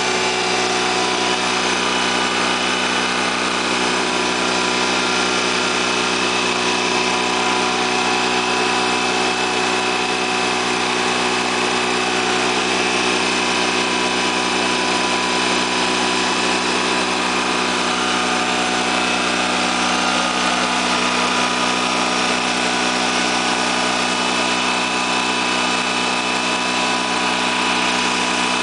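Freshly rebuilt Honda EV6010 generator's liquid-cooled engine running at a steady, even speed, with no change in pitch or level.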